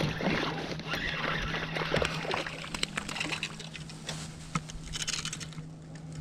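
Water sloshing and trickling beside a kayak, with scattered clicks and knocks in the middle. High rising-and-falling calls sound over it during the first couple of seconds.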